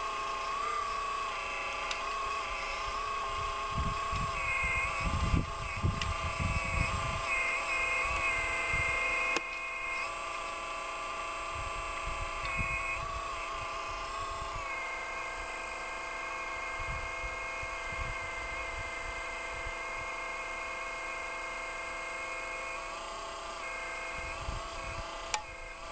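Radio-controlled hydraulic model excavator working: its hydraulic pump gives a steady whine whose pitch wavers as the controls load it, then settles. There are low rumbles a few seconds in, and a sharp click about nine seconds in and another near the end.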